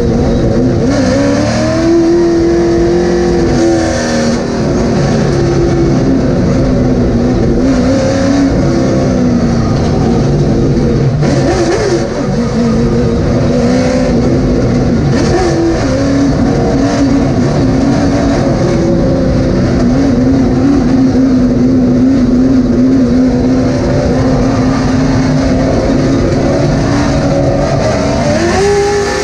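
Late model stock car's V8 engine at racing speed, heard from inside the cockpit. Its pitch rises and falls again and again as the driver accelerates and lifts, with a steep climb near the end.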